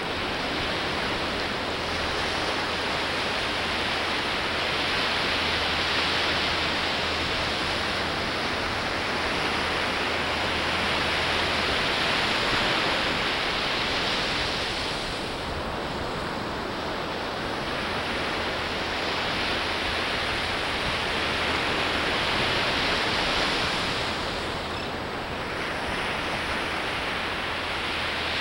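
Ocean surf breaking and washing up on a sandy beach: a steady hiss of waves that swells and eases every several seconds.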